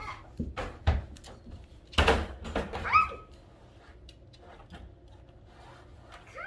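A dog whining in short rising whimpers, once about three seconds in and again at the end, with knocks and a loud clank about two seconds in as the wire dog crate is bumped.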